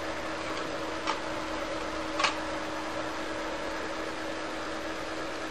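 Two small sharp clicks, about a second apart, of a screwdriver working at the screws of an open hard disk drive, over a steady hum.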